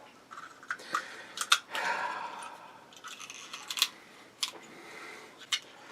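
Irregular clicks and rattles of a toy cap gun being handled and worked, with a short rustle about two seconds in.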